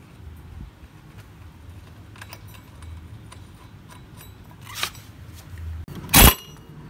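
Small metal parts of a scooter's CVT being handled and fitted: scattered light clinks, a sharper click near five seconds, and a loud knock about six seconds in, over a low steady hum.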